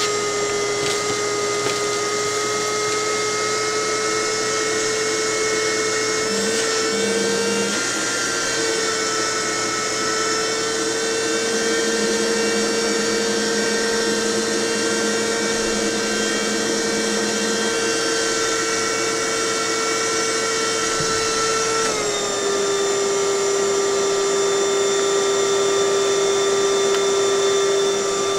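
High-speed electric motor running steadily with a strong hum, like a vacuum or power tool. Its pitch rises slightly about a quarter of the way in and drops a little a few seconds before the end, as the load on it changes.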